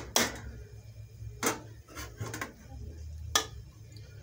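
A plastic serving spoon tapping against the side of an aluminium pot while shredded cabbage is stirred: a few separate taps about a second apart, the last and loudest right at the end.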